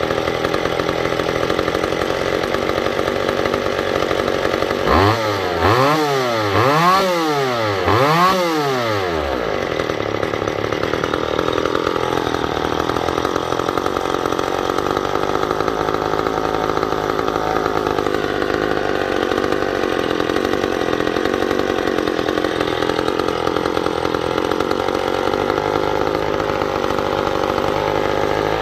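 Two-stroke McCulloch chainsaw engine running steadily. About five seconds in it is revved up and let back down three times in quick succession.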